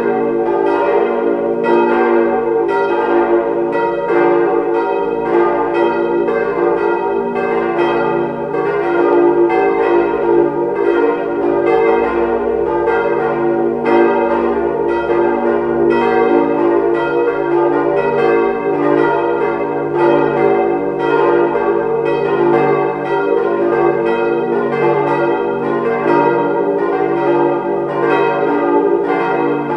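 Four hard cast-iron church bells (Weule, 1949, struck notes d', f', g' and b-flat') swinging together in a partial peal. Their strikes fall several times a second and overlap in a continuous ringing. The bells' strike notes are noticeably out of line with one another, a sign of the aging iron bells.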